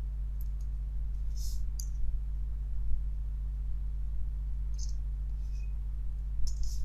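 A few scattered keystrokes on a computer keyboard, short light clicks several seconds apart, over a steady low hum.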